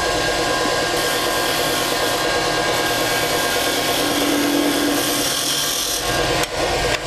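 Spindle gouge cutting into wood spinning on a lathe: a steady shearing cut over the lathe's running hum, which stops about six seconds in while the lathe keeps turning.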